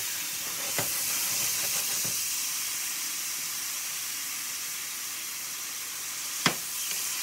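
Sliced mushrooms sizzling in a cast-iron skillet with a splash of wine reducing: a steady, high hiss. A wooden spatula taps the pan lightly early on and knocks it once sharply near the end.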